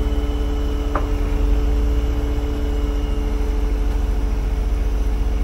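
A heavy wrecker's diesel engine runs steadily with a constant hum, while its hydraulics raise the boom under load. A short squeak sounds about a second in.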